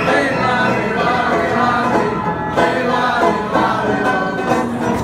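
Upright piano and banjo playing a tune together, with several voices singing along.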